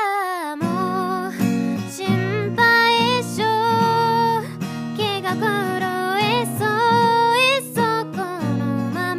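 Solo voice singing a melody while accompanying on acoustic guitar; the strummed chords come in about half a second in under the voice.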